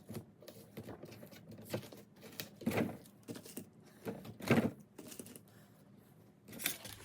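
Shrink wrap and masking tape crinkling and tearing as they are peeled away from a cured fiberglass seat base, in irregular rustles and rips. The loudest rip comes about four and a half seconds in.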